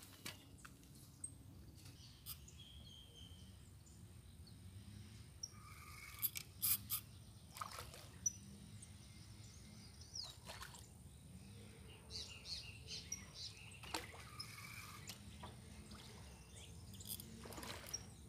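Quiet outdoor ambience at a pond bank: scattered short bird chirps, with occasional light clicks and taps.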